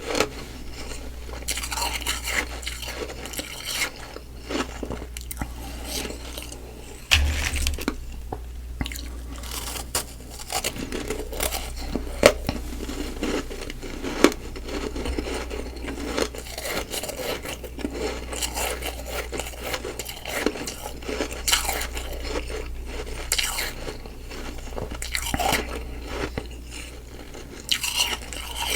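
Humidifier frost ice being bitten and chewed, with irregular crunches and scrapes throughout.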